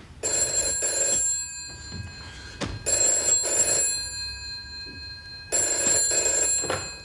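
Desk telephone ringing in the British double-ring pattern: three pairs of short rings. A single thump comes between the first and second pairs.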